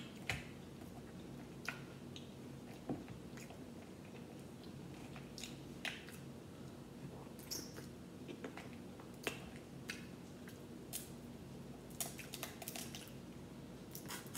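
Boiled crawfish being peeled and eaten by hand: scattered short cracks and snaps of shell, roughly one every second, with chewing between, over a faint steady hum.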